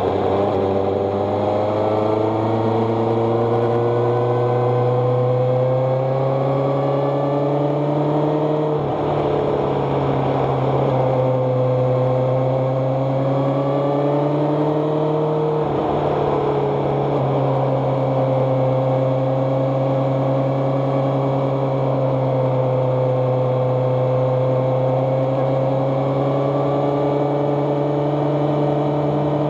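A motor vehicle's engine running steadily. Its pitch rises slowly, drops suddenly about nine seconds in and again about sixteen seconds in, then holds steady.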